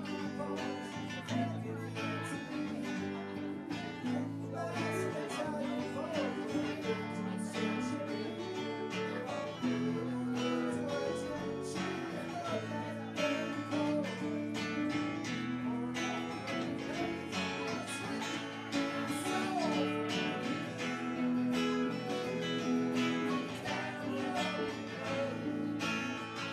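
A live band plays with acoustic and electric guitars: a strummed acoustic guitar under the electric guitars.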